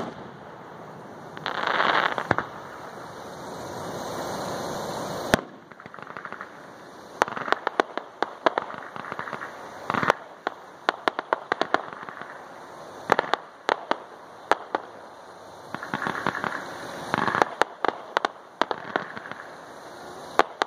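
Fireworks finale: aerial shells bursting with sharp bangs, followed by dense crackling from crackling stars. A steady rushing hiss cuts off suddenly about five seconds in.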